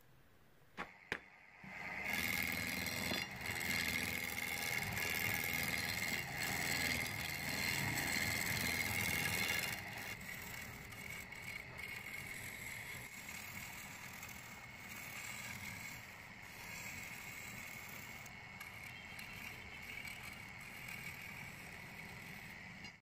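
Two short knocks, then a wood lathe spinning a wooden blank while a hand-held turning chisel cuts it: a steady scraping hiss with a high ring. It is loudest for the first several seconds and goes on a little quieter, then stops abruptly.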